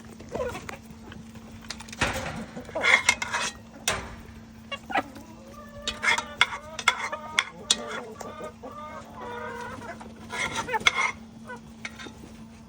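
Chickens clucking in a run of short, repeated calls, busiest in the middle, with a few sharp knocks near the start. A steady low hum runs underneath.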